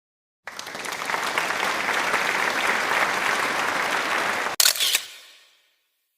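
Applause, starting abruptly and holding steady for about four seconds, then a short, sharp burst before it fades out.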